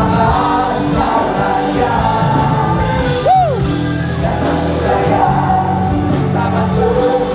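A live worship band and singers perform an upbeat gospel praise song with the congregation singing along. About three seconds in there is a brief swooping note that rises and falls.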